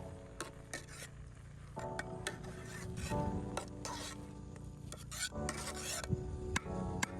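Scraping and clicking of stirring in a cooking pot, over background music with held and plucked notes.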